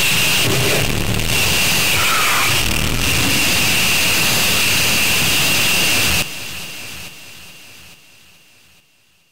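Harsh electronic noise music: a dense wall of hiss and rumble with a steady high tone running through it, which drops away in several steps from about six seconds in until it is almost silent at the end.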